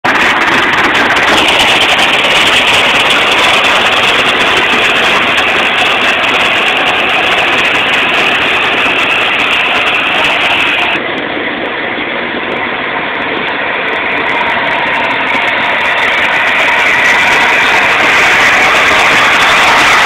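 Deutz-Fahr M2685 combine harvester working in barley: its engine and harvesting machinery run as a steady, loud, dense noise. The sound dips a little about halfway through, then builds back up toward the end.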